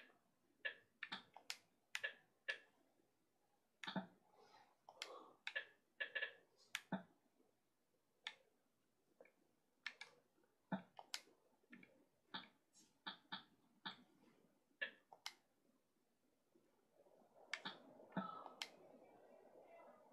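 Typing: irregular sharp key clicks, one to three a second, with pauses between runs. A soft rustle comes in near the end.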